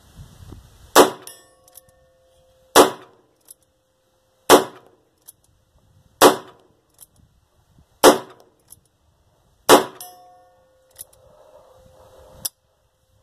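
Six shots from a Heritage single-action .22 revolver, fired one at a time about two seconds apart, with a small click of the hammer being cocked between shots. A faint ringing lingers after the shots, and there is one last click near the end.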